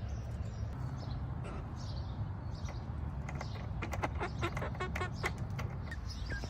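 Buff Orpington chicks, about four weeks old, giving scattered short peeps with a run of sharp clicks in the second half, over a steady low hum. This is the sound the keeper reads as the chicks being impatient or demanding, asking for treats.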